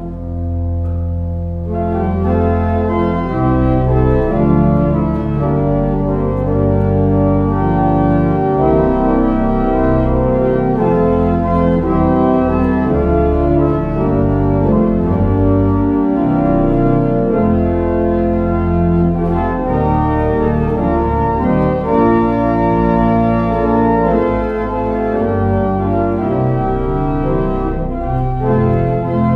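Pipe organ playing slow, held chords over a deep bass line, with the harmony changing every second or so.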